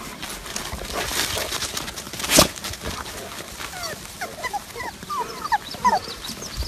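A litter of puppies whimpering and squeaking, many short high calls overlapping in the second half. There is one sharp knock a little over two seconds in.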